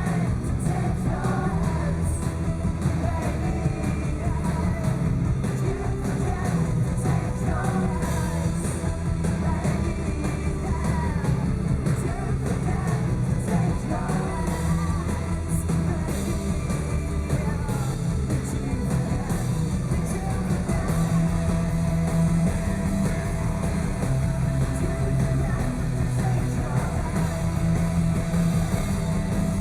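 Rock band playing live at full volume, heard from the crowd: a dense, even wall of guitars and rhythm section, heaviest in the bass.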